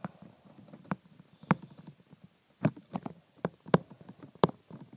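Stylus tapping and clicking against a tablet's glass screen while handwriting: about nine sharp, irregularly spaced clicks.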